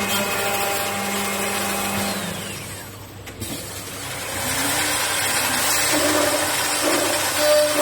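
CNC woodworking lathe running: a steady motor whine that fades out about two seconds in, then after a short lull the machine noise returns with wavering tones, like a cutter working the wood.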